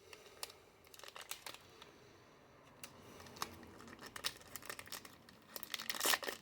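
The foil wrapper of a Yu-Gi-Oh! booster pack crinkling as it is handled and the cards are pulled out, with scattered crackles and a louder burst of crinkling near the end.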